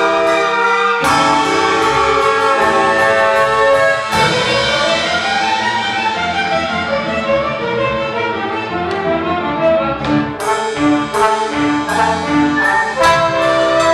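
Orchestra playing, with brass (trumpets and trombones) and strings. There are sustained chords, and from about two-thirds of the way in there is a run of sharp, accented hits.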